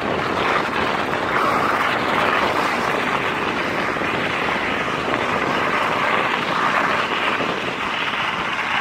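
Steady rushing noise of wind and movement on the microphone of a camera carried by someone running over a snowy track.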